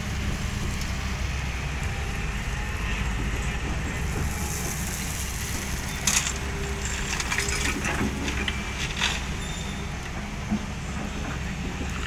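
Hyundai 220LC-9S crawler excavator's diesel engine running with a steady low rumble. About six seconds in, a bucket-load of gravel drops into the steel bed of a dump truck with a sharp crash, followed by a few seconds of rattling stones.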